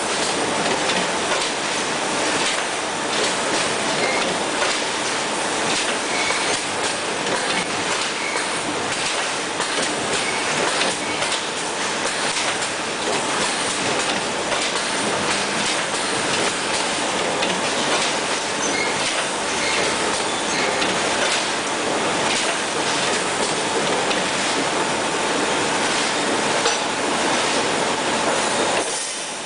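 Pneumatic multi-point wire mesh welding machine running: a steady mechanical clatter with frequent sharp clacks.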